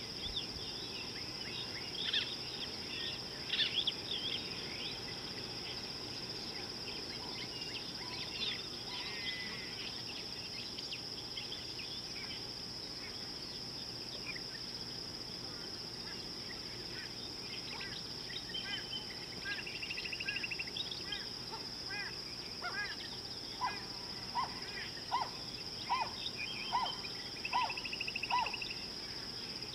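A steady high-pitched insect drone, with scattered bird chirps and short trills over it. Near the end a bird repeats one clear note about seven times, a little more than one a second.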